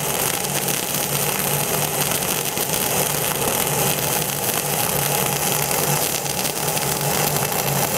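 MIG welding arc running steadily on 70C cored wire under C25 shielding gas at 27.5 volts and 400 wire feed speed, an unbroken welding noise through the second pass of a joint over ceramic backing tape.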